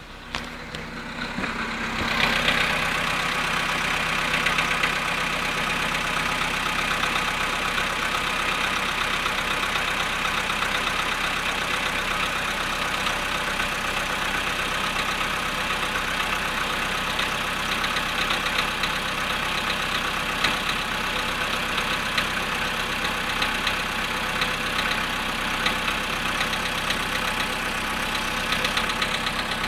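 Volkswagen Polo sedan engine idling cold after standing 13 hours at about 0.5 degrees, with a rapid knocking from the engine. The sound grows louder over the first two seconds, then runs steadily.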